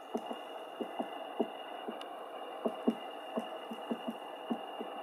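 Great spotted woodpecker pecking at dead wood: single, irregularly spaced knocks, about three a second, not a drumming roll.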